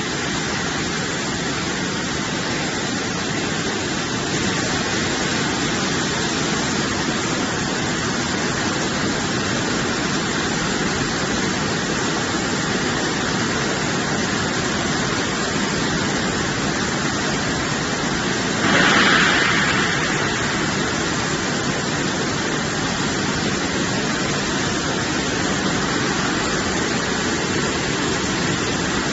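Poultry washing machine on a slaughter line running: a steady rush of spraying water and machine noise, with a brief louder surge about two-thirds of the way through.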